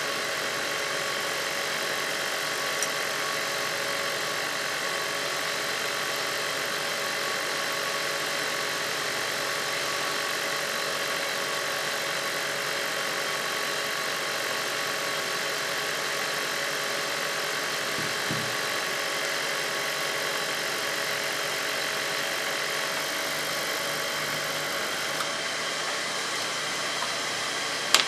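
Steady whirring hiss of a BGA rework station's air blower running on a laptop motherboard, with a faint tick about three seconds in and a brief low thump about eighteen seconds in.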